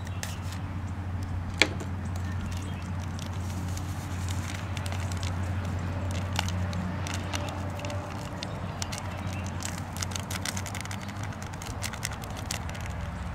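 Small foil seasoning packet crinkling and crackling as it is torn open and emptied into the cup, over a steady low rumble. One sharp click comes a little over a second in.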